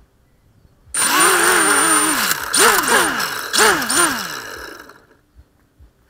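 A small motor revving up and down in quick bursts, with a high steady whine over it, from about a second in until it fades out near the end.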